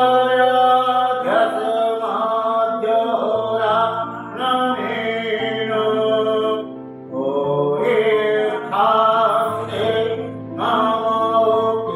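Devotional music: a chanted mantra sung over a sustained drone.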